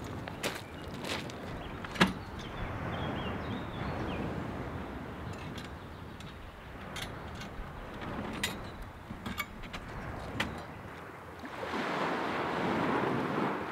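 Small waves washing on a pebble beach, with scattered sharp clicks and knocks, the loudest about two seconds in. Near the end a wave surges up the shingle in a louder rush.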